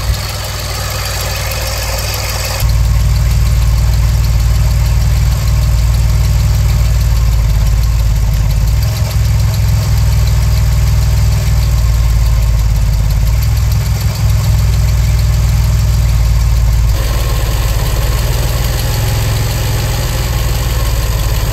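DeLorean DMC-12's PRV V6 engine idling steadily, heard from under the car, with a slight blow from the exhaust that the owner takes for a small exhaust leak. The low rumble grows louder about two and a half seconds in.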